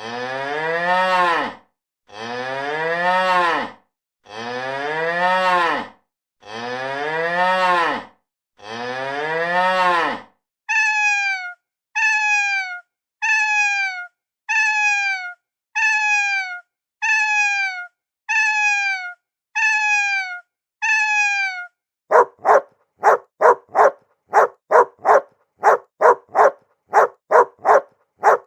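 A cow mooing five times in long calls that rise then fall. Then a cat meowing nine times in short calls falling in pitch. Then a dog barking in quick, repeated barks.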